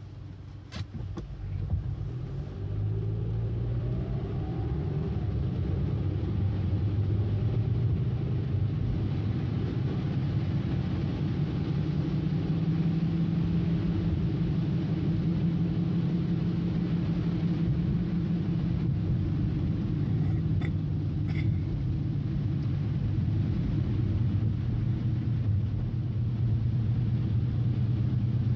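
Car ride heard from inside the cabin in the rain: a low, steady rumble of engine and road noise with a light hiss above it. About two to three seconds in, the engine note rises and the rumble grows louder as the car picks up speed, then it holds steady. A couple of clicks come just before the rise, and a few faint ticks come later.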